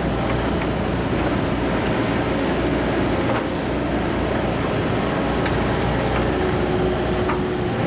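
Hitachi ZX210LC excavator's diesel engine running steadily as the machine works its bucket. A steady whine drops lower about six seconds in, and a few short metallic knocks are heard.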